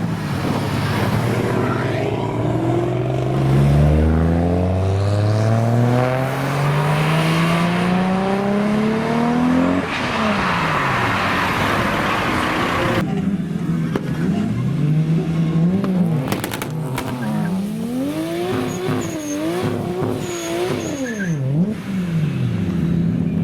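Toyota Supra's 2JZ straight-six accelerating hard, its pitch climbing steadily for several seconds before the throttle drops off about ten seconds in. Later the engine is revved up and down repeatedly over a steady lower note.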